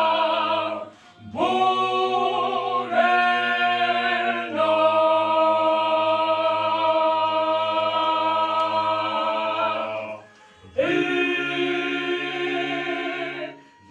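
Small mixed gospel vocal group, men and women, singing in harmony: several sung phrases with short breaks, including one long held chord of about five seconds in the middle.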